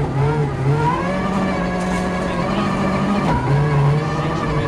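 Ford Focus RS WRC's turbocharged four-cylinder rally engine heard from inside the cabin, its revs repeatedly dipping and climbing as the driver lifts off and accelerates. The gearbox is stuck in sixth gear.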